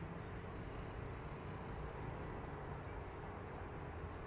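Steady low outdoor background rumble with a faint steady hum, no distinct events.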